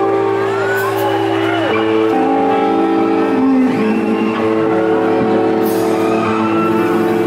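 Background music: a song track with sustained notes and a steady level.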